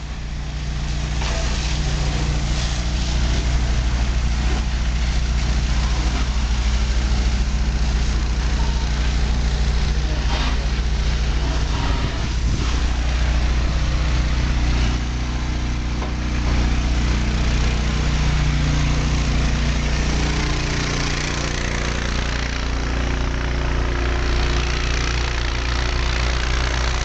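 Fire truck's engine running steadily at the scene, a deep drone with a steady hiss over it.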